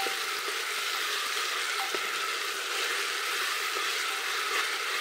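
Sliced onions sizzling steadily in hot oil in a pressure cooker, stirred with a spatula that gives a few faint taps against the pot.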